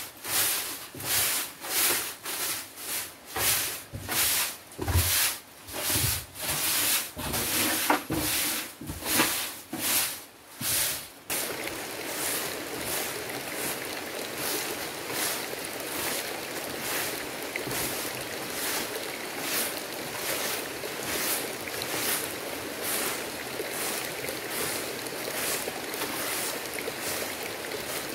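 A straw broom sweeping a wooden plank floor in regular swishes, about two strokes a second. About eleven seconds in, the strokes turn quicker and lighter and go on steadily.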